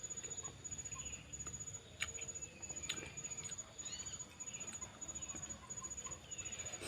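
Person chewing a mouthful of seblak: soft wet mouth clicks and smacks, with a few sharper clicks about two and three seconds in.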